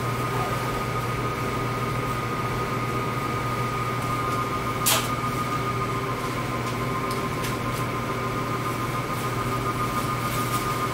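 Steady whir and hiss of a cleanroom's ventilation, with a constant hum and a few steady tones. One brief sharp noise about five seconds in.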